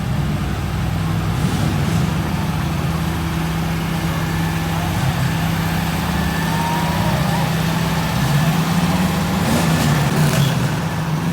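A large engine idling steadily with an even low hum, with faint voices of a crowd behind it.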